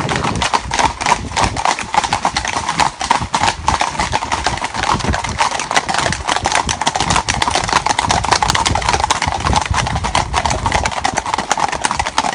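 Hooves of several ridden horses clip-clopping, many overlapping hoofbeats in a dense, uneven patter.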